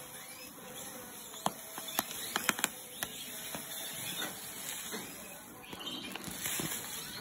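Dry granular canary egg-food mix pouring into a plastic tray: a steady hiss, with a few sharp clicks about one and a half to two and a half seconds in.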